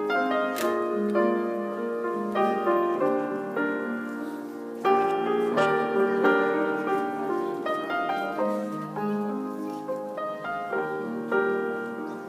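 Solo grand piano playing a piano arrangement of a Sicilian folk song: chords and melody notes struck one after another and left ringing, with a louder chord about five seconds in.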